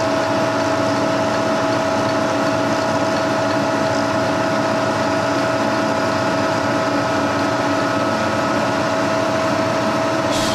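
Milling machine running, its end mill cutting a pocket in an aluminum block: a steady machine whine with one strong tone over the cutting noise. There is a single sharp click near the end.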